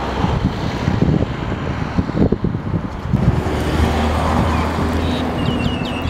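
Wind buffeting the microphone in a constant jittery rumble, with a steady low hum in the second half and a few brief high chirps near the end.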